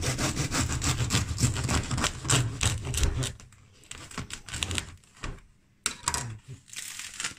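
Long bread knife sawing through the crisp, well-baked crust of a sourdough loaf: a rapid run of crackling, crunching strokes for about three seconds, then slower scattered crunches and a short last burst of crackling near the end.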